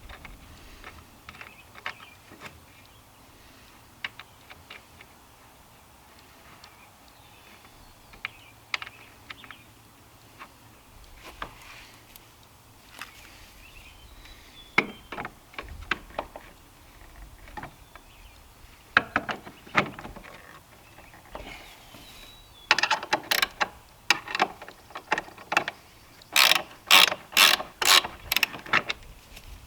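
Hand work on metal hinge hardware: scattered sharp metallic clicks and knocks, which come in quick runs of several strikes over the last seven seconds or so.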